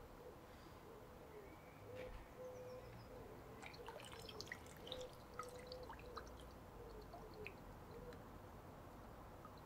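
Faint drips and small plinks of water, heard muffled through an underwater action camera's waterproof case in a paddling pool. They cluster in the middle stretch, over a faint low tone that comes and goes.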